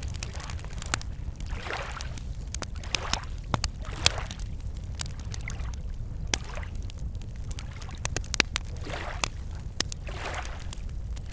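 Wood campfire crackling with many sharp pops, while small waves lap at a lakeshore in soft swells every second or two, over a steady low rumble.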